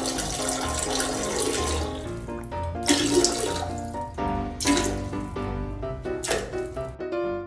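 A stream of liquid splashing into toilet water for about the first two seconds, from a Shiba Inu perched over the toilet bowl relieving itself, under background music that carries on after the splashing fades.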